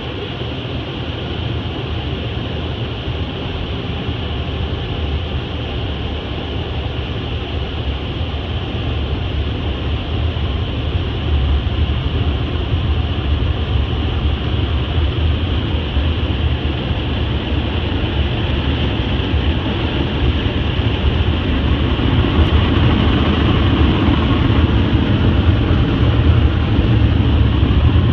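Steady rushing noise with a deep rumble underneath, heard from inside a car's cabin, growing gradually louder.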